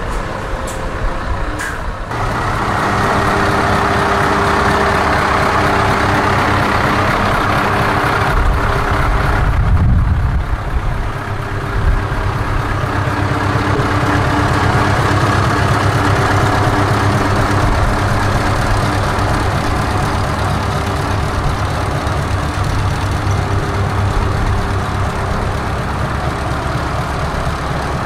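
Scania V8 truck engine running at low revs as the tractor unit rolls slowly past, a steady deep engine note throughout. It swells briefly about ten seconds in.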